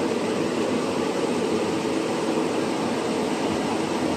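Steady, even mechanical noise of workshop machinery running, with no breaks or individual knocks.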